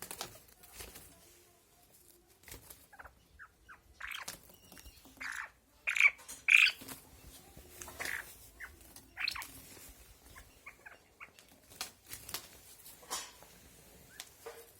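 Chukar partridges calling: a scattered series of short, harsh calls, the loudest two coming close together about six seconds in.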